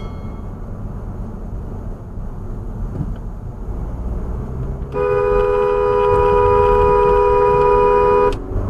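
Steady low road and engine noise of a car in traffic; about five seconds in, a car horn sounds one long steady blast of just over three seconds, two notes together, then cuts off.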